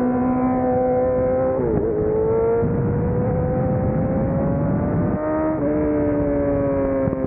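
Sport motorcycle engine running at speed under a rush of wind and road noise. About two seconds in the engine pitch dips briefly, then climbs steadily as the bike accelerates, and about five and a half seconds in it steps down and falls away as the throttle eases.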